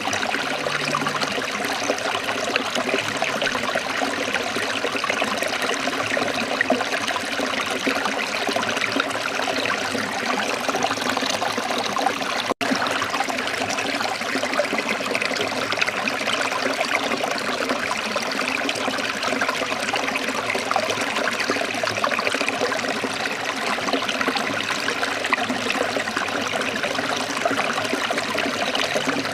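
Steady, gentle running water trickling and flowing without a break, except for a momentary drop-out about halfway through.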